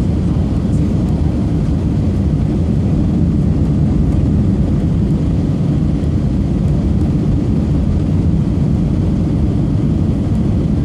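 Airliner cabin noise heard from a window seat: a steady low rumble of jet engines and rushing air during the approach to landing, with no bumps or changes.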